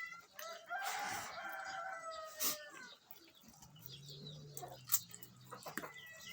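A rooster crowing once, a single long call lasting about two and a half seconds, followed by a fainter low drone and a few sharp clicks.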